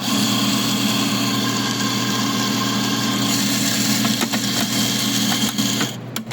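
Electric coffee grinder running steadily as it grinds a dose of espresso beans (about 18 g), stopping abruptly near the end.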